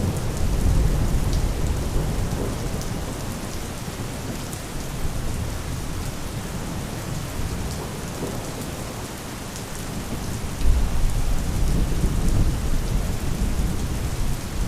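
Steady rain falling, with distant thunder rumbling low underneath: one roll near the start and another swelling about ten seconds in.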